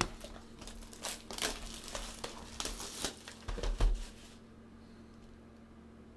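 Plastic wrapping on a sealed box of trading cards crinkling and tearing as it is pulled open, with a dull thump about four seconds in, after which it goes quiet.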